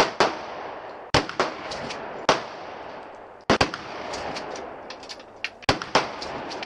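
Gunshots at a shooting range: about nine sharp shots at irregular intervals, some loud and close with a short echo after each, others fainter, with two quick pairs of shots, one about a second in and another near the end.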